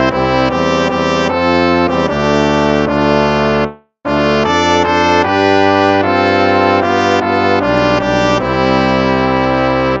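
Instrumental hymn played in slow held chords on brass, breaking off into a brief silence about four seconds in before the next phrase begins.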